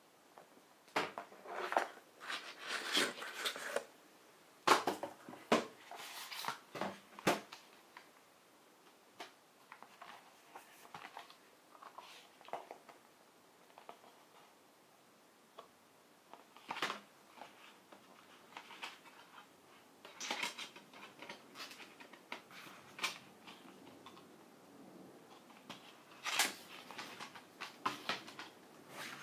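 Hands handling a Blu-ray box set's packaging: cardboard digipak panels folding, plastic disc trays clicking and card rustling. The sound comes as irregular clusters of clicks and taps with short quiet gaps between.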